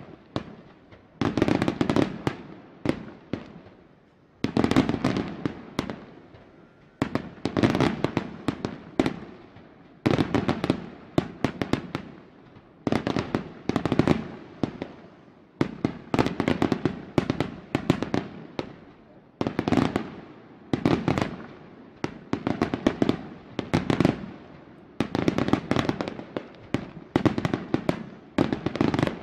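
Aerial fireworks shells bursting in volleys, each a cluster of sharp bangs that fades away before the next one starts a second or two later.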